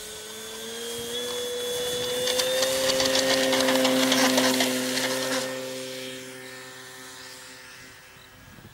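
Electric motor and propeller of a Top-Flite Cessna 182 scale RC model whining at takeoff power during its takeoff run. The sound swells to its loudest about four seconds in as the plane passes, then fades as it climbs away.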